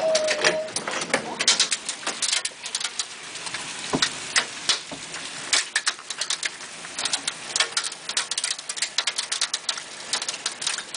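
Hail falling: a dense, irregular rattle of hailstones striking, many sharp clicks a second over a faint hiss, with one louder knock about four seconds in.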